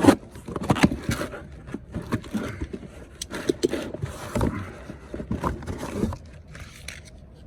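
Metal parts of a furnace blower motor assembly being handled, a series of irregular knocks, clicks and scrapes, the loudest knock right at the start, as the motor's mounting bracket is fitted.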